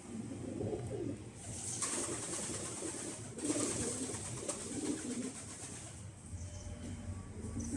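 Pigeons cooing, a run of repeated low coos.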